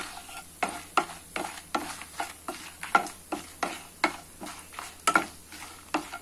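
Wooden spatula stirring and scraping whole spices around a nonstick kadai, about three strokes a second, over the faint sizzle of spices frying in butter and oil on a low flame.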